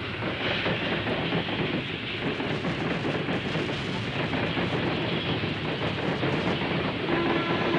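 Steam locomotive hauling a freight train past: a steady, dense rush of exhaust and rolling wheel noise.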